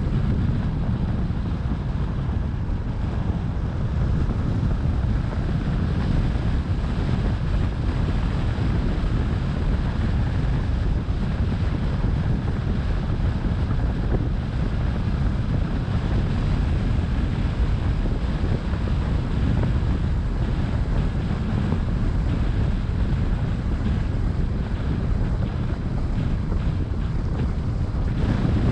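Steady road and wind noise of a car being driven, a low, even noise that does not change.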